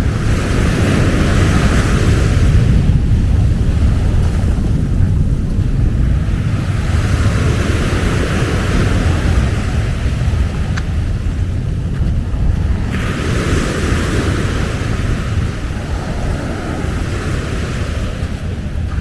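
Wind buffeting the microphone with a steady low rumble, while waves break and wash up the beach in three long hissing swells.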